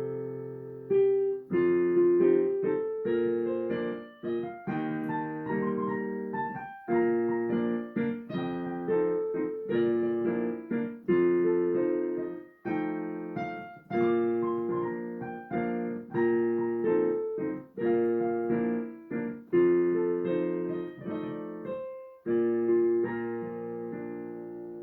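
Piano playing a slow piece in struck chords, each one decaying. The last chord rings out and fades near the end.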